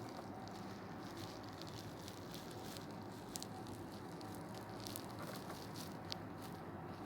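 Faint scattered small clicks and crackles over a steady low background hum.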